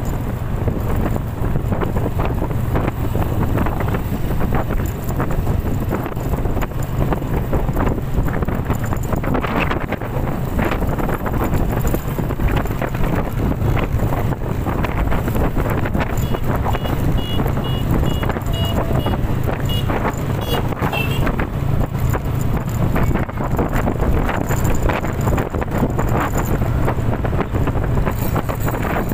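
Strong typhoon wind gusting hard against the microphone, a loud, steady rushing roar. A short run of high electronic beeps sounds a little past halfway.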